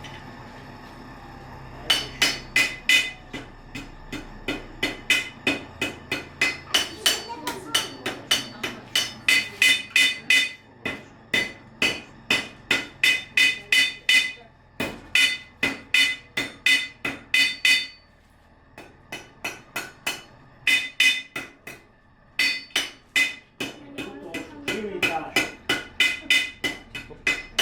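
Blacksmith's hammer striking a small horseshoe on the anvil as it is forged: runs of about three blows a second, each with a bright metallic ring, broken by short pauses.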